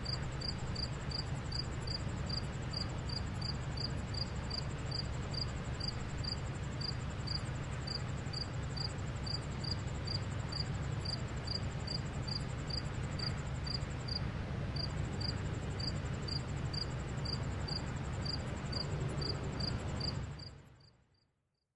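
Crickets: one chirping evenly, about two to three chirps a second, over a continuous higher insect trill and a steady low city hum. It all fades out near the end.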